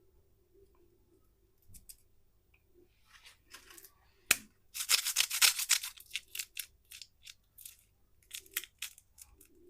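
Close-up crinkling and tearing of a candy wrapper. There is a knock about four seconds in, then a dense burst of crackling, then a run of separate sharp crackles.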